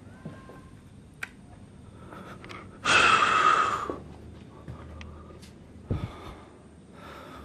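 A man's loud, breathy exhale, about a second long and fading out, with scattered light knocks and a low thump of footsteps on stairs.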